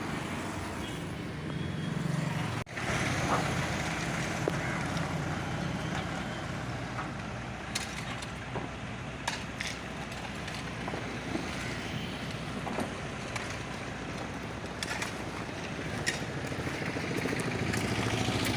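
Road roller's diesel engine running steadily as it compacts a gravel sub-base layer, with scattered short crackles and clicks from the stones underneath.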